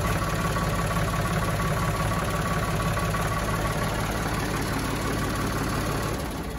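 Ford 4610 tractor's three-cylinder engine running steadily at raised speed while the front loader's hydraulics lift the bucket. The engine note drops away near the end.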